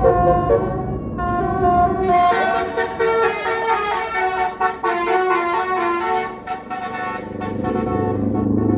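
Tour bus's basuri horn playing a melody of stepped, held notes, loud, with a hiss under it from about two seconds in that thins near the end.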